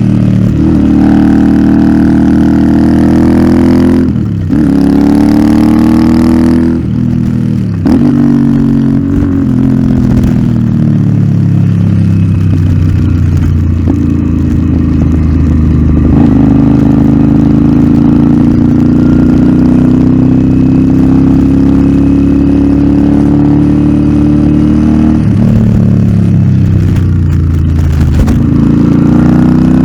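Royal Enfield Interceptor 650's parallel-twin engine through an aftermarket Nuke exhaust, being ridden: the engine note drops and picks back up several times in quick succession in the first eight seconds, like throttle being shut and reopened or gear changes. After that it pulls at a steadier pitch that slowly rises and falls, dropping and picking up once more near the end.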